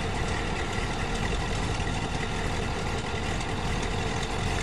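A motorhome's Dodge 360 V8 and a school bus's International 7.3 diesel idling side by side with a steady, even running sound.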